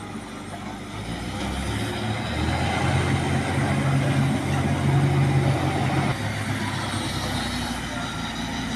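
Heavy diesel engine running. Its sound climbs after about a second, holds strong, then eases off at about six seconds, as an engine does going under load and back.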